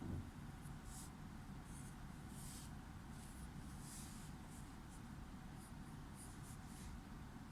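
Drawing on paper: about ten short scratching strokes of a pen or pencil tip, with a brief low thump right at the start.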